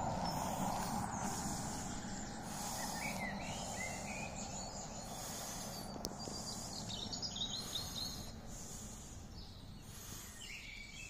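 Woodland songbirds chirping and singing in short phrases, over a steady background rush that slowly fades away.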